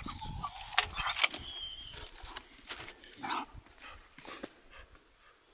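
Dog whining in high, wavering whines, one near the start and a shorter one about two seconds in, among short clicks and scuffs as it bites and tugs at a log.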